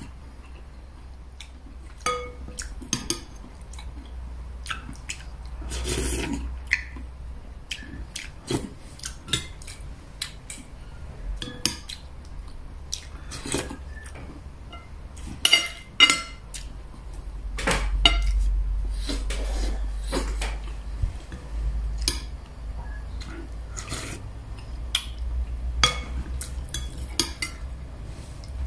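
Spoon and fork clinking and scraping against a ceramic plate while eating, in irregular taps, over a low steady hum.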